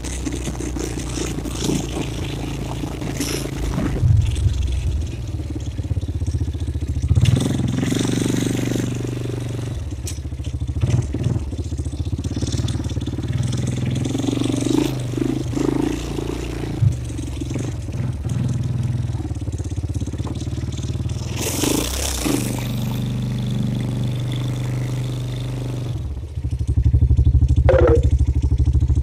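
ATV engine running as the quad is ridden over a rough dirt trail, with scattered knocks and scrapes along the way. About 26 seconds in the engine gets louder as the throttle is opened.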